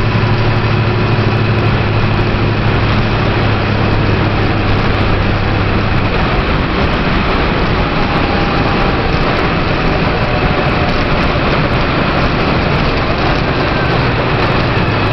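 Steady road and engine noise of a moving car, heard inside the cabin. A low engine hum drops away about six seconds in and returns near the end.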